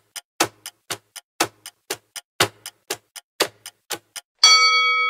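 Countdown timer sound effect: clock-like ticking, about four ticks a second with every other tick louder, then about four and a half seconds in a bright bell chime that rings on and slowly fades, marking time up.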